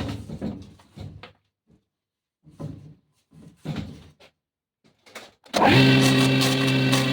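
Knocks and clatter of wood being handled, then about five and a half seconds in an electric woodworking machine starts up and runs steadily with a strong, even hum.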